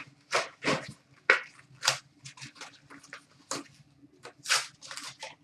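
Trading cards being handled and slid against one another: a run of short, irregular swishing and rustling sounds.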